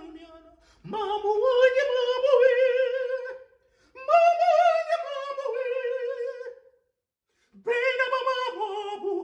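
A man singing unaccompanied in a high, operatic voice with wide vibrato, in three long held phrases with short pauses between them.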